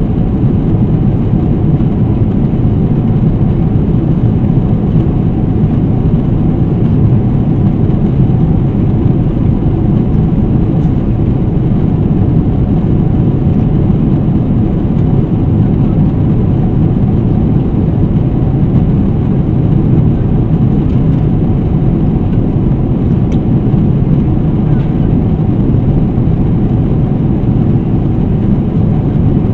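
Steady low rumble of a Boeing 777-300ER's cabin in cruise: engine and airflow noise, even and unbroken.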